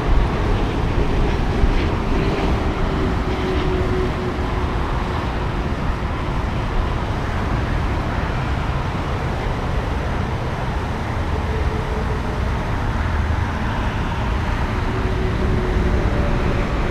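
Steady road-traffic noise from a nearby highway, with wind rumbling on the microphone.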